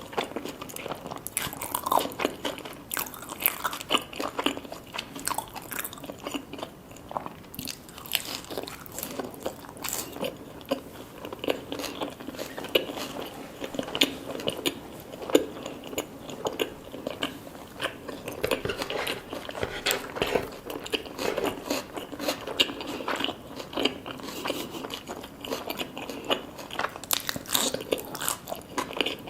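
A person biting and chewing food, with frequent crisp crunches and clicks throughout.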